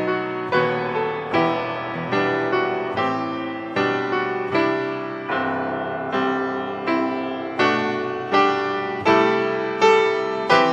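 Solo piano playing slowly, a chord struck about once every three-quarters of a second, each ringing and fading before the next.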